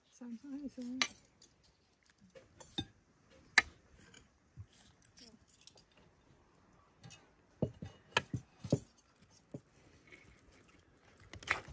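Knife and fork clinking and scraping against a plate and a metal serving tray as roast chicken is cut: scattered sharp clinks, the loudest about three and a half seconds in and a quick run of three around eight seconds.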